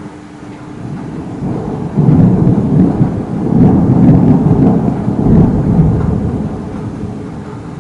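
A long roll of thunder that builds over the first two seconds, rumbles loudly and unevenly for about four seconds, then dies away.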